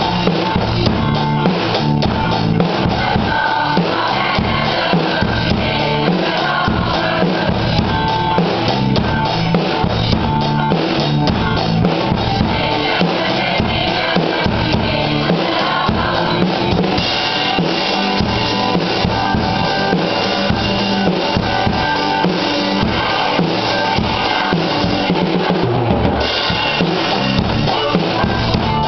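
A drum kit played along to a recorded rock song: a steady beat on bass drum and snare with cymbals, over the song's backing music.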